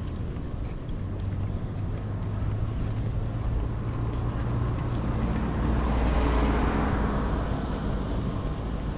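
Road traffic: a motor vehicle's engine hum with a vehicle passing close by, swelling to loudest about six to seven seconds in and then fading.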